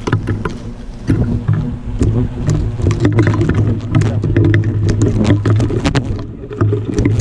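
Dense, loud buzzing of many European hornets swarming close around the microphone, the defensive flight of a colony whose nest has just been disturbed and dusted. Scattered clicks and knocks run through it, and the hum drops away briefly about six seconds in.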